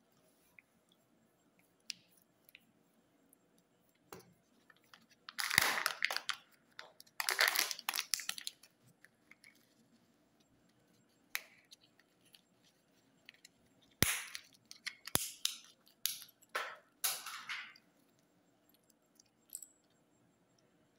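Candy and chocolate-egg wrappers being unwrapped by hand: crinkling and tearing in two clusters of bursts, with a few sharp clicks between, over quiet pauses.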